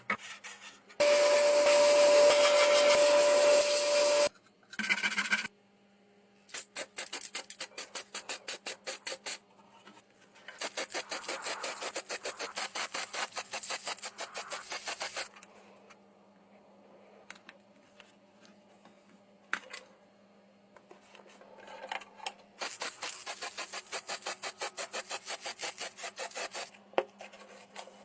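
Quick back-and-forth hand rubbing strokes, several a second, in spells of a few seconds each, typical of sanding or filing parts during a restoration. About a second in, a louder steady hiss with a single held tone runs for about three seconds.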